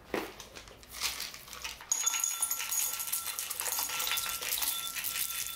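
Mixed nuts and seeds (pumpkin seeds, cashews, macadamias, goji berries) poured into a white ceramic bowl, rattling against the porcelain. A few clicks come first, then a dense continuous clatter from about two seconds in.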